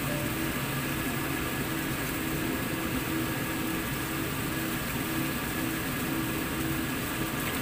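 Steady machine-like hum and hiss at an even level, with a faint low droning tone that comes and goes; no separate knocks or clatters stand out.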